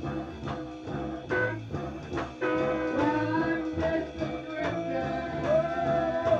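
A rock band playing live: drums keep a steady beat under bass and other instruments, with a melody line above that bends and slides in pitch.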